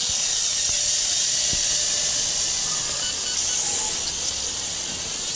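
A WLToys V262 quadcopter's four brushed motors and propellers running in flight, a loud steady whirring hiss heard close up from the camera it carries, easing slightly toward the end.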